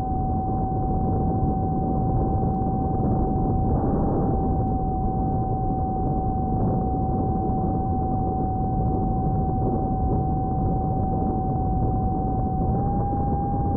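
Electric motor and propeller of a small battery-powered FPV RC plane running at steady throttle, heard through its onboard camera: a steady whine over rushing wind noise, the whine stepping up slightly in pitch near the end.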